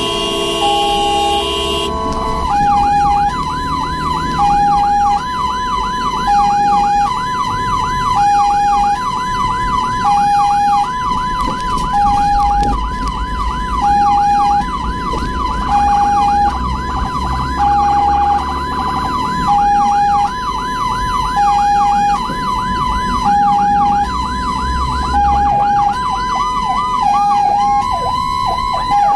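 Ambulance siren sounding a hi-lo two-tone, switching pitch about once a second, together with a quick yelp that sweeps up and down several times a second. The yelp turns irregular near the end. A horn sounds for the first two seconds.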